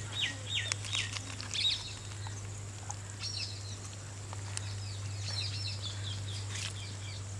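Birds chirping on and off over a steady low hum, with a few faint clicks. A quick run of repeated chirps comes right at the start, and scattered chirps follow later.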